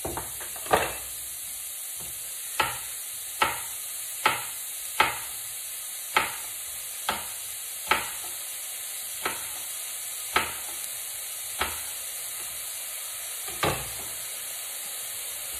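Garlic and garlic stems sizzling in oil in a pan, a steady hiss. Over it come about a dozen sharp knocks at uneven intervals, roughly one a second, from a knife striking a cutting board as a red chili is chopped.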